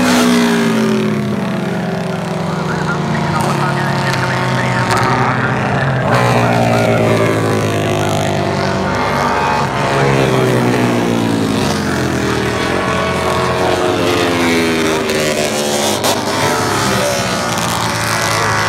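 Several racing motorcycle engines running at high revs together, their pitch climbing and dropping again and again as the bikes accelerate, shift gear and pass by.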